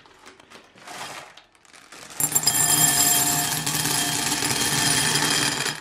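Faint crinkling of a plastic candy bag, then, about two seconds in, a stream of M&M's candies pouring into a glass bowl: a loud, dense, continuous rattle that stops sharply near the end.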